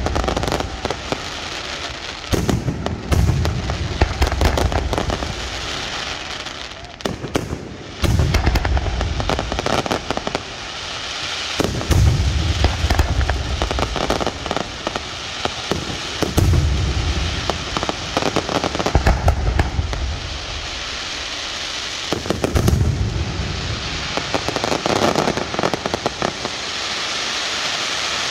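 Aerial firework shells bursting, a deep boom about every three to four seconds, with dense crackling from the bursting stars between them. Near the end the booms give way to a steadier crackling hiss as glittering stars fall.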